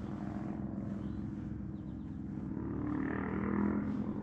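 Engine drone, steady and low with a rise in pitch and loudness near the end.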